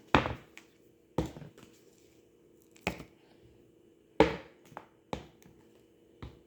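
Kitchen containers knocked and set down on a counter: about seven sharp, irregularly spaced knocks, the loudest just after the start and about four seconds in. A faint steady hum runs underneath.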